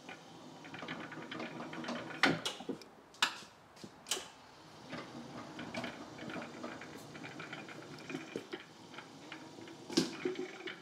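Electric drive motor of a Cat walk-behind pallet stacker whirring steadily as the stacker is driven forward, with a few sharp clicks along the way.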